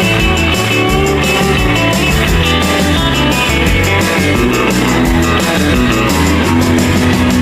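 Rock band playing an instrumental passage: guitar lead over bass and drum kit, with no singing.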